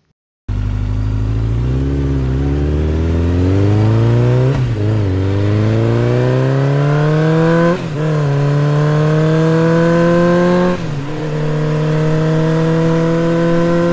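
Motorcycle engine starting abruptly and accelerating through the gears. Its pitch climbs, drops at each of three gear changes a few seconds apart, then rises slowly again.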